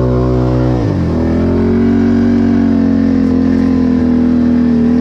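Can-Am 1000 ATV's V-twin engine running hard at high revs, dropping sharply about a second in, then holding steady at lower revs.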